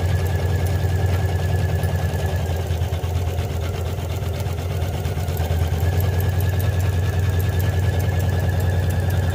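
Usha 550E computerized embroidery machine stitching a design: rapid, even needle strokes over a steady low hum.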